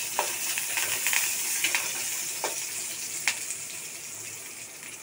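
Tempering sizzling in hot oil in a metal kadai: curry leaves, dried red chillies, mustard seeds and cumin frying with a steady hiss while being stirred, with a few sharp clicks. The sizzle dies down towards the end.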